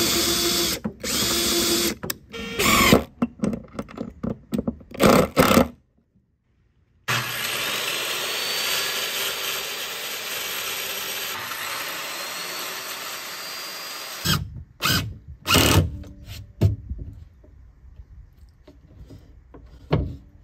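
A cordless drill drilling through a steel L bracket into wood in short stop-start bursts. After a sudden break, a circular saw cuts a wooden panel, a steady running sound for about seven seconds, followed by several knocks.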